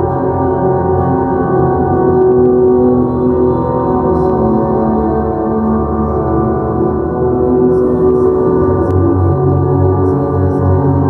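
Ambient drone music: many sustained ringing tones layered into a dense, steady wash, with no beat.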